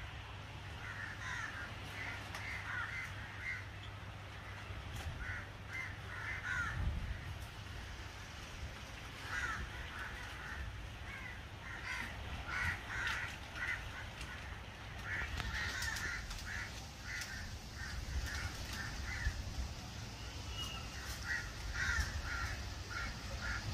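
Birds calling in repeated series of short notes throughout, over a low steady rumble.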